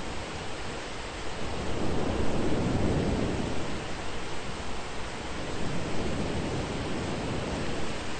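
Thunderstorm rain with a steady hiss, and a low rumble of rolling thunder that swells about two to three seconds in and fades.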